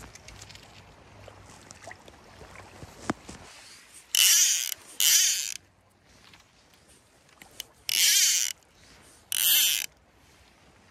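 Fly reel's click-and-pawl ratchet buzzing in four short bursts of about half a second each, two close together and then two more a few seconds later, as line runs through the reel.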